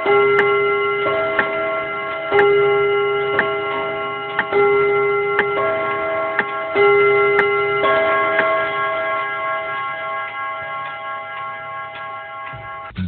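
Clock ticking about once a second over slow, sustained bell-like chime notes, growing fainter toward the end.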